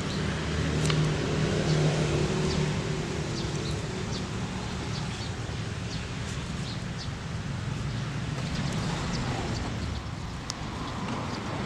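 A motor vehicle's engine hum passing, swelling to its loudest about two seconds in and fading over the next few seconds, over a steady background hiss, with scattered faint light ticks.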